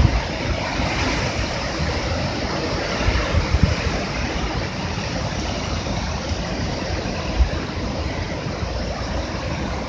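Hurricane wind rushing steadily, with low buffeting thumps of wind hitting the microphone about three seconds in and again a little past seven seconds.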